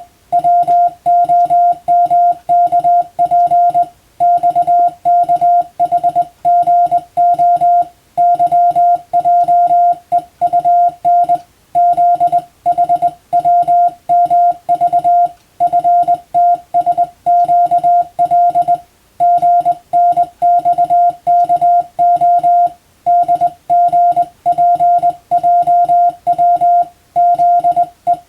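Morse code (CW) keyed on a telegraph key and heard as a steady, clear mid-pitched beep. The beep switches rapidly on and off in dots and dashes, with a slightly longer pause every few seconds between word groups: telegraph receiving practice.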